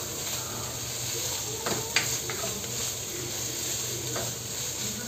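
Shredded chicken and diced meat frying in a nonstick wok with a steady sizzle, stirred with a spatula that clicks against the pan a few times about two seconds in and once more near the end.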